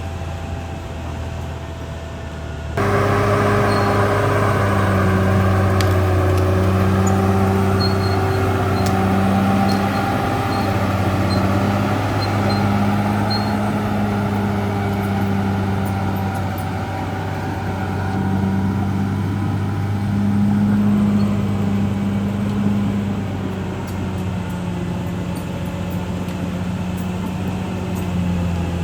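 CAT D6R XL bulldozer's diesel engine running with a steady low drone, louder from about three seconds in.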